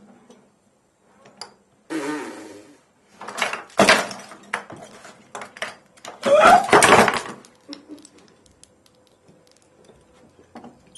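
Wooden skeleton marionette clattering as it is worked and let fall: its jointed wooden limbs knock against each other and the wooden floorboards in three bursts of rattling, with scattered clicks between them.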